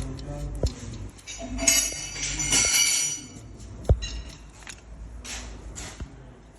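Metallic clinking and ringing, with a stretch of high ringing tones about two to three seconds in and a single sharp click about four seconds in.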